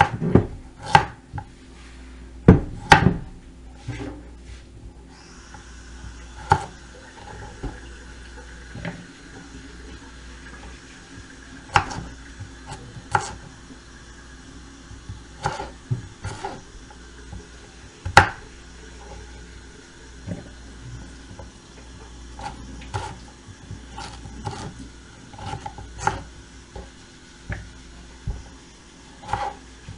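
Chef's knife cutting potatoes on a wooden cutting board: irregular sharp knocks as the blade comes down on the board, the loudest about three seconds in and again at about eighteen seconds. A kitchen tap starts running about five seconds in and hisses under the knocks.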